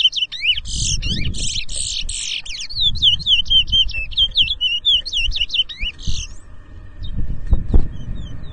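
Chestnut-bellied seed finch (towa-towa) singing a fast, loud song of repeated whistled up-and-down notes, about four a second, broken by buzzy rasping phrases. The song stops about six and a half seconds in; a low rumble and a few thumps lie beneath it.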